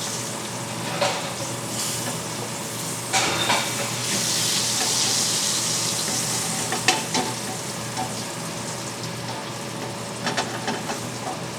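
Milkfish frying in oil in a De Buyer carbon steel pan: a steady sizzle that swells louder about four to six seconds in, with a few sharp knocks of a utensil against the pan.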